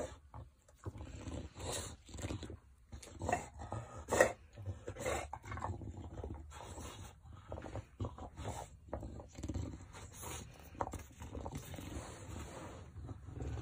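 Bulldog's vocal and breathing sounds coming in irregular short bursts as it mouths and tugs at a blanket, with the cloth rustling.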